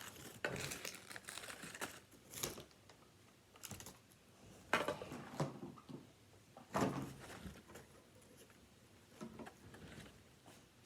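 Irregular clicks and rustles of small toy pieces and packaging being handled, with the sharpest clatters about five and seven seconds in.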